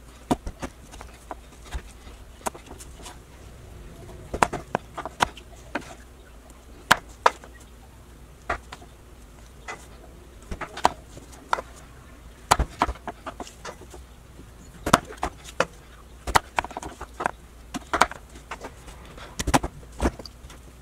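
Knife cutting raw, peeled sweet potatoes into fries on a wooden cutting board: irregular sharp knocks as the blade goes through and hits the board, a few each second with short pauses between.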